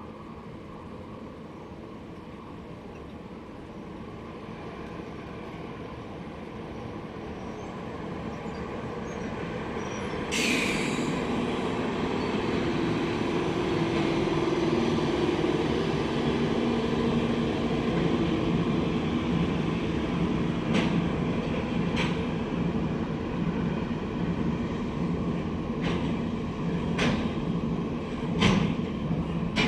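Train on a freight line approaching and passing: the rumble grows over the first ten seconds, a short hiss-like burst comes about ten seconds in, then a loud steady rumble of wheels on rail follows, with several sharp wheel clacks over rail joints near the end.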